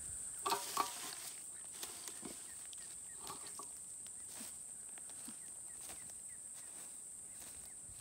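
Steady high-pitched insect drone, with scattered clicks and rustles as eucalyptus leaves are pushed down into a pot over a wood fire; the two loudest clicks come about half a second to a second in.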